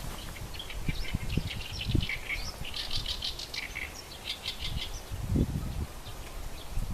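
Small birds chirping in quick runs of short high notes. A couple of low gusts of wind swell and fade beneath them.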